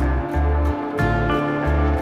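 Background music with a steady bass beat and sustained melodic notes.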